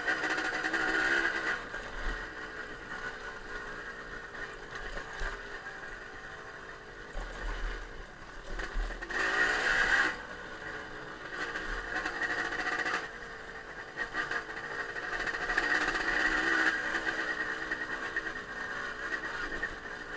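Off-road motorcycle engine revving up and down, loudest near the start and again about ten seconds in.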